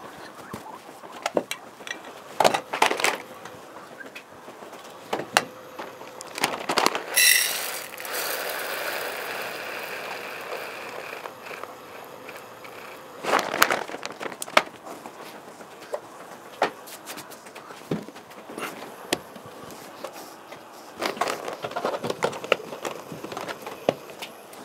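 Handling noises: a plastic bag of green coffee beans crinkling, and the beans poured into a small cup in a rustling stream for a few seconds, among scattered clicks and knocks.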